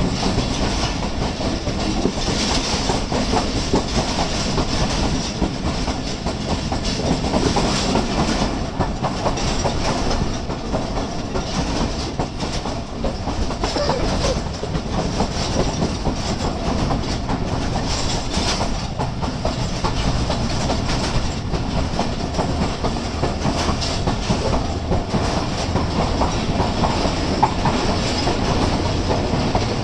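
Express passenger train's coaches rolling past, wheels clattering over the rail joints in a continuous clickety-clack.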